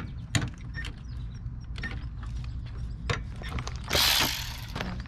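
Scattered sharp metallic clicks and knocks from hand tools working on the door hinge bolts of a third-generation Camaro, with a short scraping noise about four seconds in as the loudest sound.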